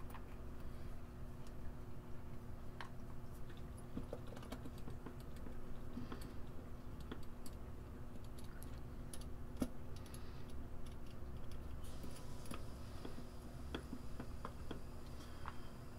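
Scattered light clicks and taps of small metal screws and plastic kettle parts being handled and fitted, over a steady low hum.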